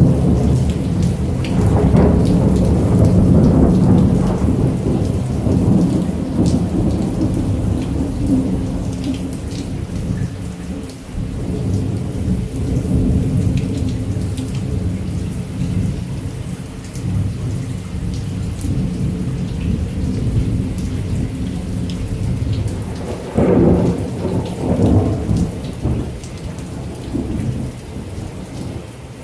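Heavy rain with thunder: a steady hiss of rain over a long, deep rolling rumble at the start that fades away, then a second sharper peal of thunder rolling about two-thirds of the way through.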